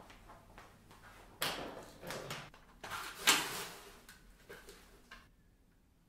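Clunks and scraping from a stainless steel pedal bin's lid being opened and a Dyson V11 cordless vacuum being handled over it, loudest about three seconds in, followed by a couple of light clicks.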